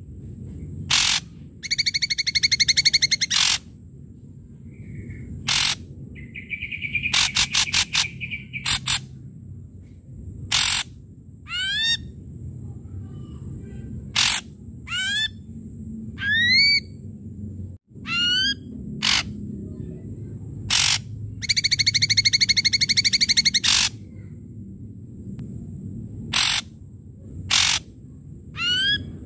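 Ashy drongo singing a varied, loud song: sharp clicking notes, harsh buzzy rattles of one to two seconds, and short whistles that sweep upward in pitch, repeated in quick succession.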